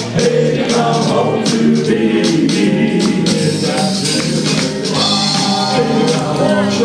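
Doo-wop vocal group singing the song in harmony, with a steady beat of short, bright percussion strokes.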